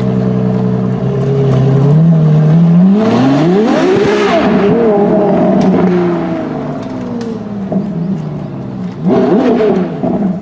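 Ferrari LaFerrari Aperta's 6.3-litre V12 running steadily, then revving hard under acceleration: its pitch climbs steeply to the loudest point about four seconds in and settles back down. It gives another short rev near the end.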